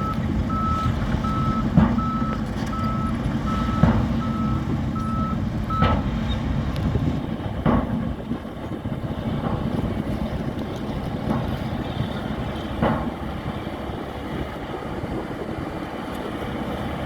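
Heavy construction machine's reversing alarm beeping evenly, a little over once a second, stopping about six seconds in, over the steady rumble of a diesel engine. Several sharp knocks sound over the engine along the way.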